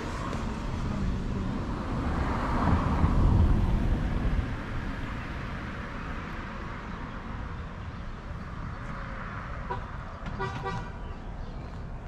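Road traffic: a vehicle passes close by, loudest about three seconds in, then a short horn toot near the end.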